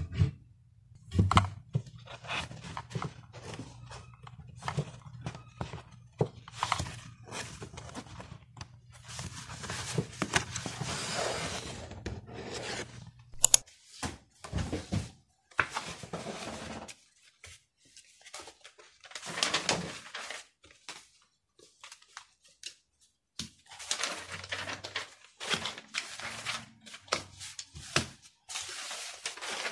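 Paper and folders being handled on a desk: rustling and sliding sheets with knocks and thunks, first a hand rummaging through folders in a wooden drawer, then loose sheets being gathered and set into a duo-tang folder. A low steady hum runs under the first half and stops about halfway.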